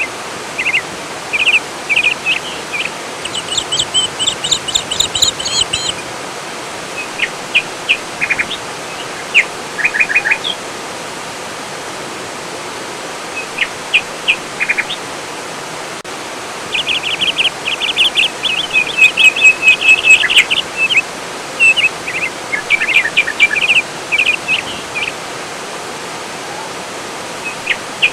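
Songbirds chirping and trilling in short bursts over a steady rush of flowing water. The densest, loudest run of trills comes a little past halfway.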